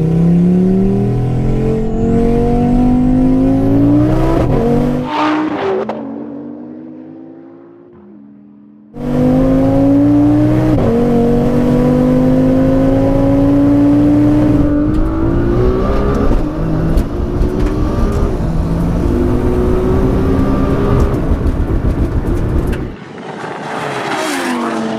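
Tuned car engines accelerating hard at full throttle through the gears, heard from inside a car: the pitch climbs and drops back at each gear change. The sound fades out about six seconds in and comes back loud about three seconds later, and near the end a car speeds past with a falling pitch.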